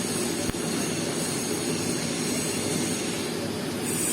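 Steady whooshing machine noise, with a single sharp click about half a second in.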